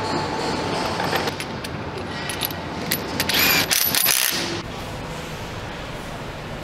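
Assembly-line machinery noise with a run of sharp metallic clicks and clinks, and a louder burst of mechanical noise a little past halfway that cuts off suddenly, leaving a steadier, quieter hum.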